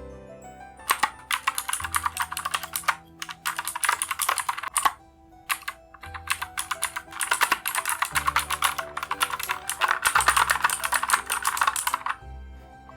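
Fast typing on a Keychron K10 mechanical keyboard with clicky Gateron Blue switches: dense runs of sharp key clicks, pausing briefly around five and six seconds in and stopping about a second before the end. Background music plays underneath.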